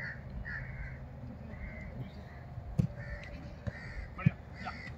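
Crows cawing repeatedly, short harsh calls coming every half second or so. A few dull thuds of a football being kicked cut through, the loudest about four seconds in.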